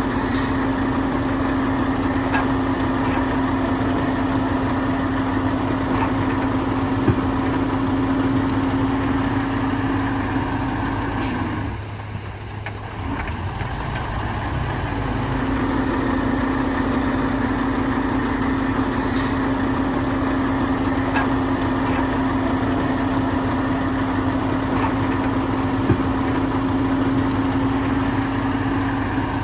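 Heavy diesel engine of earthmoving machinery running steadily, easing off for a few seconds about halfway through, then picking up again.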